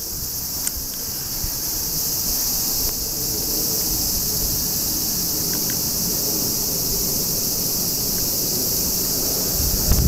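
Cicadas droning steadily in a high, even hiss, with a low rumble underneath.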